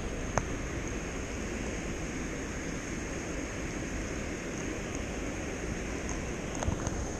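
Steady rush of water flowing through a canal lock's gates and chamber.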